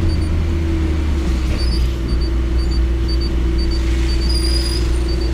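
Truck's diesel engine running low and steady, heard from inside the cab, with a faint high beep repeating about twice a second, typical of a reversing warning as the lorry backs onto a loading bay.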